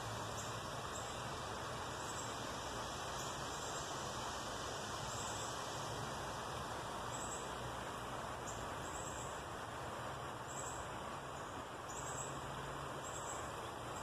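Creekside outdoor ambience: a steady hiss with short, high chirps repeating every half second or so, more often in the second half.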